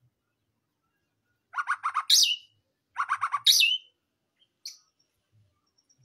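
White-rumped shama singing: two phrases about a second apart, each a quick run of four or five notes followed by a loud falling whistle, then a single short high note.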